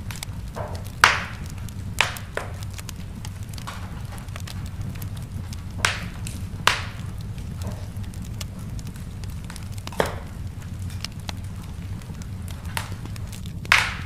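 Wood fire crackling in a fireplace: a steady low rumble of the burning with sharp pops and snaps at irregular intervals, the loudest about a second in and near the end.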